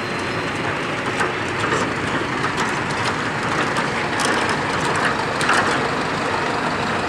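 Automatic brick-making line running: a steady mechanical din from the cutting and conveying machinery, with a few sharp clacks, most of them around four to five seconds in.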